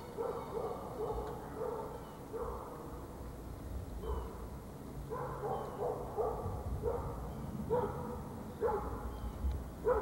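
A dog barking over and over in short calls, coming closer together in the second half.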